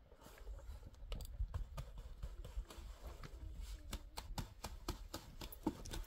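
Scattered small knocks, clicks and scrapes from hand block-laying work, with a metal bucket and concrete blocks being handled, over a low rumble of wind on the microphone.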